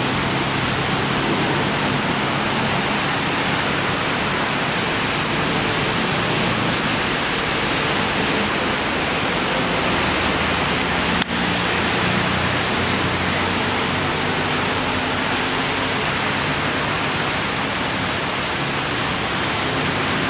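Heavy tropical rain pouring down, a dense, steady hiss of rain hitting the road, puddles and leaves.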